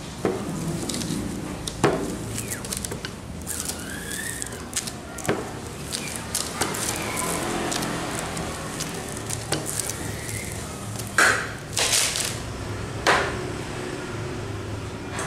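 Rubber squeegee scraping white plastisol ink across a wooden-framed silkscreen, in strokes with short knocks between them. Near the end come three louder knocks and scrapes as the hinged screen frame is handled and lifted.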